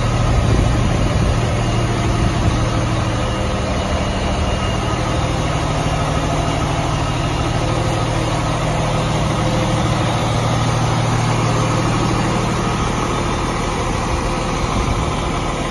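2002 International Paystar truck's diesel engine idling steadily.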